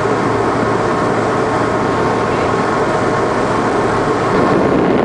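A whale-watching cruise boat's engine running steadily, mixed with a steady rush of wind and water.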